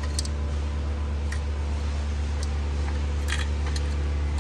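Light metallic clicks and ticks as a chainsaw chain and a Husqvarna bar are handled and fitted back onto the saw. There are a few scattered single ticks, then a short cluster about three seconds in, over a steady low background hum.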